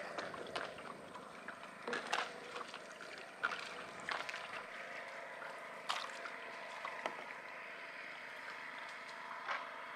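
Water trickling and splashing around a wooden dugout canoe as it is pushed along with a pole, with scattered small knocks and drips.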